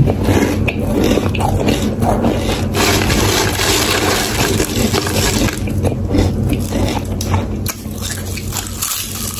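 Close-miked chewing of crisp potato chips: a dense run of crunches and crackles that eases off slightly near the end, with chips rustling as they are picked from the pile.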